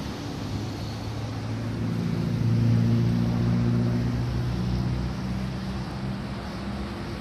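Crawler excavator's diesel engine running, a steady low hum that grows louder about two seconds in and then eases back.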